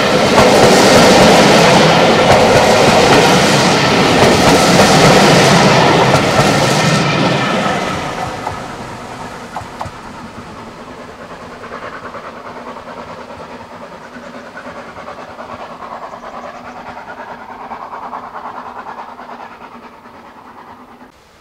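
Steam-hauled train passing close by, its wheels and carriages loud for about eight seconds, then dropping away to a fainter rumble that slowly fades as it recedes.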